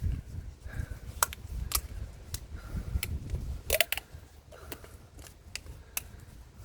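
Scattered light clicks and knocks, about a dozen, of tools and containers being handled, with a small cluster of them midway, over a steady low rumble.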